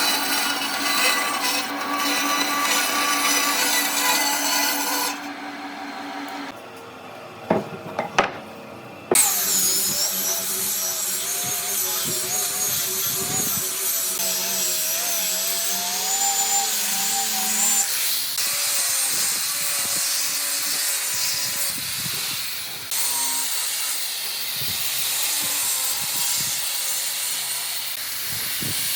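Electric power tools working wood, a motor whining with its pitch wavering under load. It drops out for a few seconds, when a few sharp knocks sound. Then a tool starts up again abruptly about nine seconds in and runs on.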